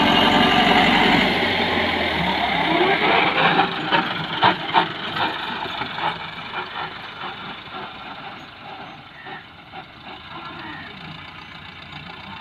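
Massey Ferguson 375 tractor's four-cylinder diesel engine running, loud at first, then quieter and more distant from a little over a second in. A few sharp knocks sound about four to five seconds in.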